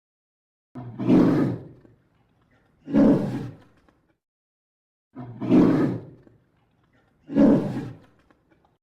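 Polar bear roaring four times, each roar about a second long and about two seconds apart.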